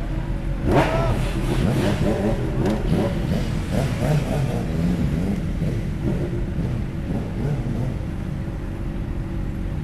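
Motorcycle engines running, with some light revving in the first few seconds that settles to a steady rumble.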